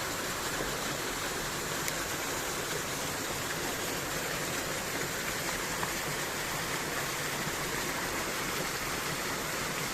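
Stream water flowing and rushing steadily.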